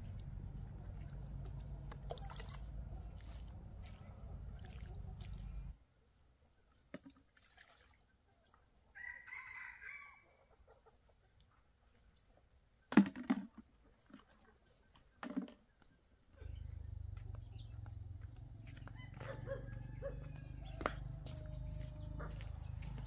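Chickens clucking and a rooster crowing, over a low rumble that stops about six seconds in and returns near the end. Two sharp knocks come in the quieter middle stretch.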